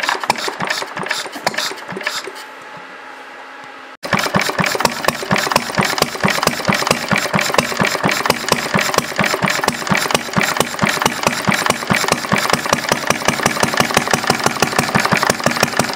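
Single-cylinder Briggs & Stratton engine with a see-through glass cylinder head. It gives a few irregular knocks and pops at first, then about four seconds in it is running with an even, rapid firing beat.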